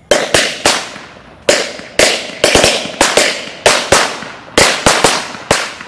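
A bundle of bidi bomb firecrackers going off one after another inside a small steel pressure cooker: more than a dozen sharp bangs at uneven intervals, each fading quickly.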